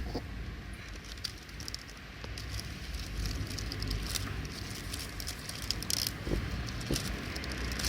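Plastic bag crinkling and rustling as it is handled, with scattered small clicks and a sharp click at the start.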